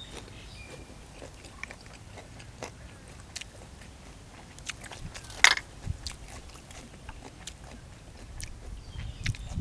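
A person chewing and biting food close to the microphone, with small wet clicks and crunches and one sharp, louder crunch about five and a half seconds in.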